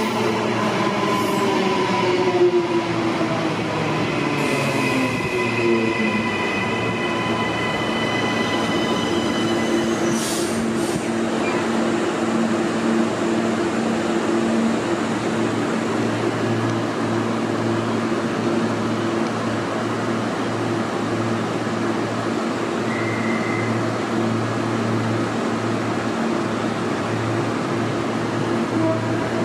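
Queensland Rail NGR electric commuter train braking to a stop: falling motor and brake whine with high squeals over roughly the first eight seconds. Then the standing train's steady hum from its onboard equipment.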